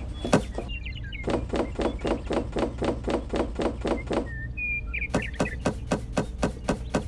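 Small plastic toy carrots knocking and clattering against a wooden crate and a plastic toy trailer as they are moved one by one, in two quick runs of light knocks at about five a second.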